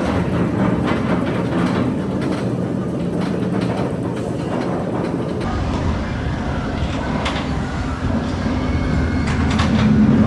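Oblivion, a Bolliger & Mabillard dive roller coaster, its train rattling along the steel track with many short clicks; the sound changes abruptly about halfway through.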